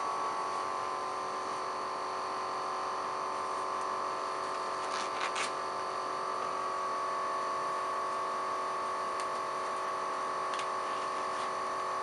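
Steady electrical hum made of several pitched tones, unchanging throughout. A few faint crinkles and snaps of nitrile gloves being pulled on come about halfway through and again near the end.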